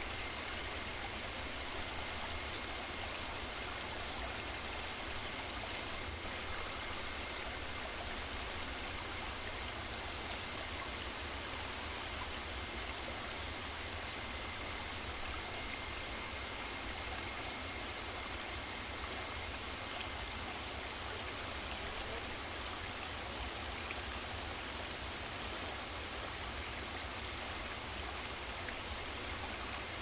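Waterfall cascading: a steady, unbroken rush of falling water, with a faint thin high tone above it.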